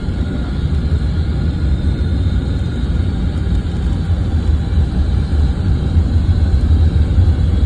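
Tour bus running, a steady low engine rumble with road noise heard from inside the cabin.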